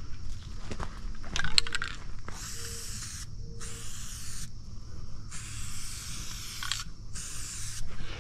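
Aerosol spray-paint can hissing in four short bursts, each about a second or less, marking a tree for cutting. A brief rattle comes just before the first burst.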